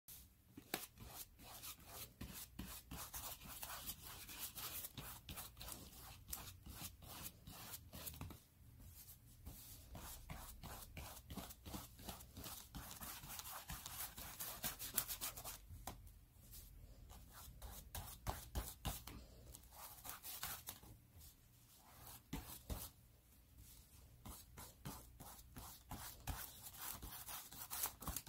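Paintbrush bristles stroking paint onto thin cereal-box cardboard: a faint, rapid scratchy brushing that stops briefly a few times.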